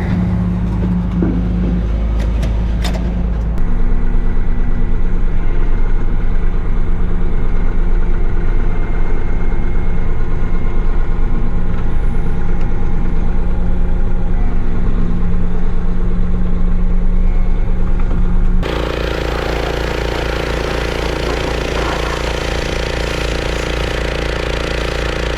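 An engine running steadily at a constant speed, growing louder about three and a half seconds in. About eighteen seconds in it changes abruptly to a different steady engine note.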